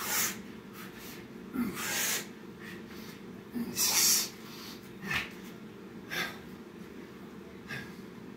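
A man breathing hard during burpees: forceful breaths roughly every one to two seconds, the longest and loudest about two and four seconds in, over a steady low hum.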